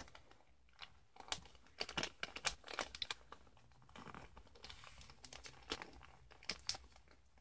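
Shiny foil wrapping paper crinkling faintly in scattered small crackles as hands fold it and press the creases down.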